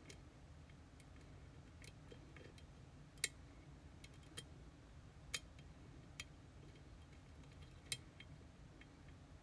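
Faint, scattered metallic clicks of a pick working the pins of an EVVA Dual dimple lock cylinder, three of them sharper than the rest.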